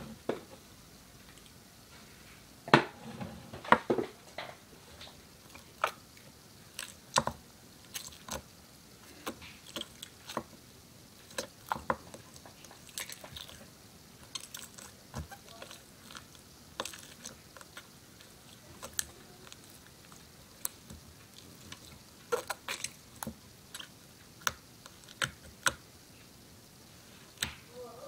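Homemade noise putty being squeezed and poked with a finger in its small plastic cup, giving irregular short wet squelches and pops.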